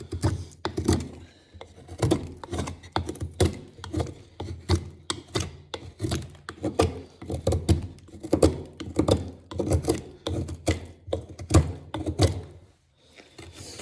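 Hand-made 1075 steel knife being stropped, its blade stroked back and forth in quick even passes, about two to three a second, each pass a short scraping thump.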